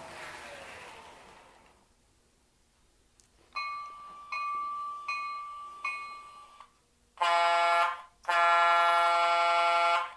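Onboard electronic sound system of an American Models S gauge GG1 model locomotive: a falling whine fades out as the engine slows, then the bell rings four times, then the horn sounds twice, a short blast and a longer one of about two seconds.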